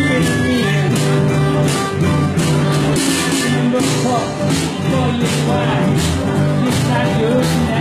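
Live band playing a blues-rock number, with a bass line and a steady drum beat.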